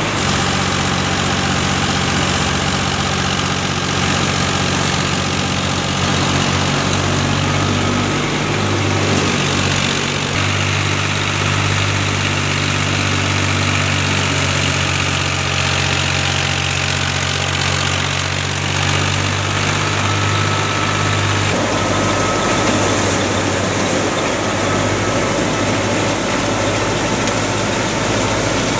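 Diesel engine of a New Holland Ghazi 65 hp tractor running steadily while belted to a wheat thresher. A little past two-thirds of the way through, the steady engine note changes to a rougher, noisier sound.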